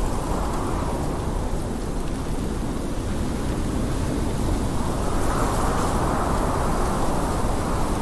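Blizzard wind blowing steadily with a deep rumble underneath, swelling into a louder howling gust about five seconds in.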